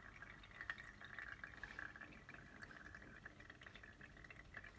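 Faint trickle and small drips of water running out of a BRITA Maxtra+ filter cartridge into the jug below as the water is being filtered.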